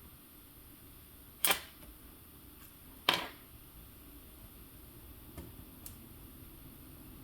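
Two sharp clacks of hard small parts or tools being handled, about a second and a half apart, followed by two faint ticks near the end.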